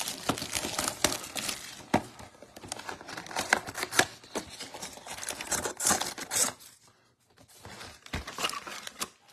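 A cardboard box of trading-card packs being torn open by hand: tearing cardboard, crinkling packaging and light tapping and scraping. The handling noise eases off about seven seconds in and picks up again briefly near the end.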